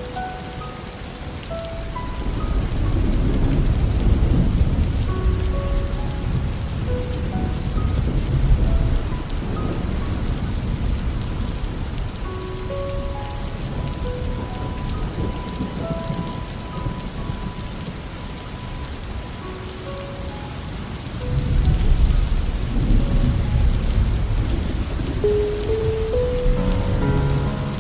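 Steady rain falling, with two long low rumbles of thunder, one a few seconds in and another late on.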